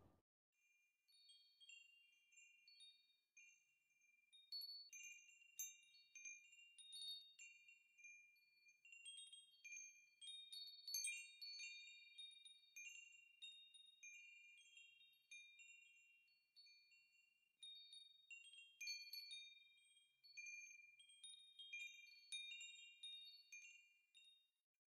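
Wind chimes tinkling faintly: many high, clear ringing tones struck in an irregular, overlapping pattern, thickest about a third of the way in and again near the end.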